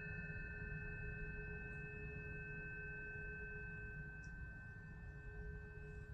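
Struck tuning forks ringing: several steady pure tones held together, slowly fading.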